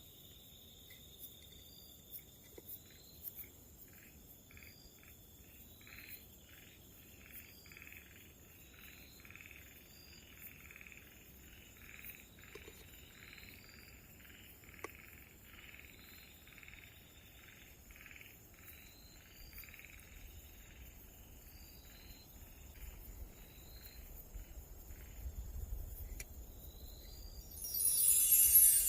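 Night chorus of frogs and insects: a frog call repeats in short notes about twice a second, over a steady high insect trill and a short chirp that comes back every second or so. A sudden loud whoosh rises near the end.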